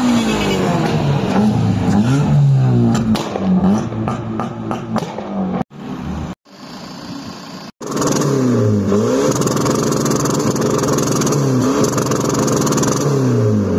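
Car engines being revved over and over, the engine note climbing and dropping again and again. The sound comes in separate short bursts with abrupt cuts between them.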